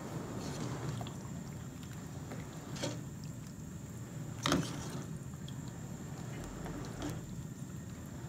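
A metal ladle stirs and scoops through a steaming pot of soup, with the liquid sloshing. The ladle clinks against the stainless-steel pot a few times, most sharply about four and a half seconds in.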